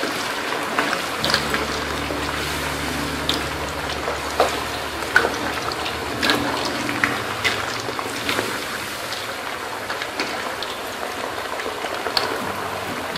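Potato pieces deep-frying in hot ghee in a kadhai: a steady sizzle with scattered sharp crackling pops.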